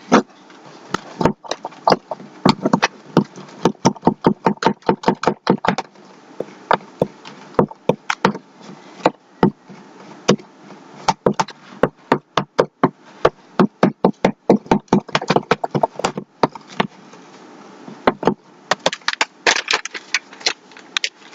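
A spoon stirring thick powdered-sugar icing in a small bowl, clinking and tapping against the bowl in quick, irregular strokes, several a second.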